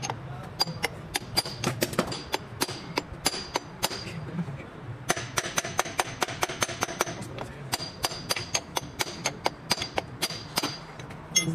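Hammer blows on a steel bar held against a Toyota Previa's transaxle case beside the driveshaft, during a transmission oil seal replacement. Sharp metal-on-metal clinks with a brief ring come about two to three a second, sometimes in quicker clusters.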